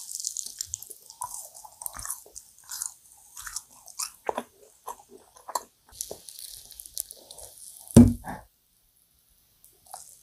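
Close-miked eating: biting and chewing dense, sticky yakgwa (Korean honey-fried cookies), one piece topped with ice cream, with many short wet mouth clicks. One louder thump about eight seconds in.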